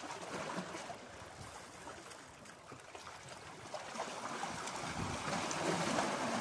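Sea water washing and splashing over shore rocks, with wind noise on the microphone, growing louder in the last couple of seconds.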